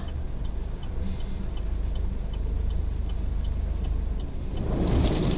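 Car interior in heavy rain: steady low engine and road rumble with faint quick regular ticking, about two or three ticks a second. About four and a half seconds in comes a louder rushing swish lasting about a second.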